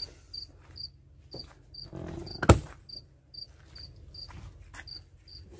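A cricket chirping steadily, about two short high-pitched chirps a second, with a single sharp knock about two and a half seconds in.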